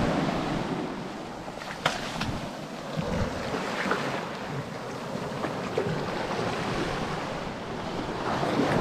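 Surf washing up the beach, with wind buffeting the microphone. There is a sharp click about two seconds in.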